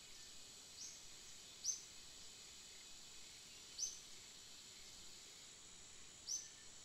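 Quiet outdoor ambience with a steady faint high insect hiss, broken by four short, sharp, high-pitched bird chirps at uneven intervals, the loudest about two seconds in and near the end.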